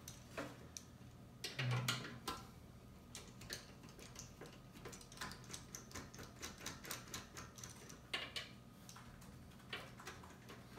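Light, irregular clicks and ticks of hands and tools working on a metal PC case as its full-size ATX power supply is loosened for removal, with a few louder knocks about two seconds in and again around eight seconds in.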